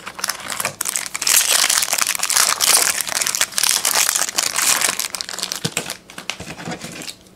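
Foil trading-card pack crinkling and crackling as it is pulled from the box and opened by hand, for about five seconds, followed by a few light ticks as the cards come out.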